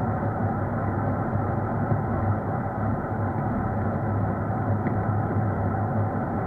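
A vehicle on the move, heard from on board: a steady low hum over even road and rumble noise, unchanging throughout.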